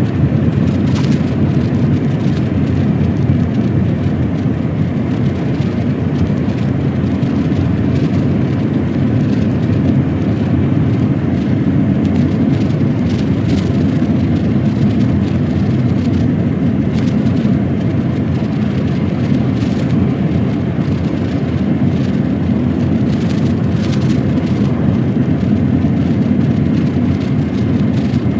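Heavy truck's diesel engine and road noise while driving, a steady low drone that holds at a constant level.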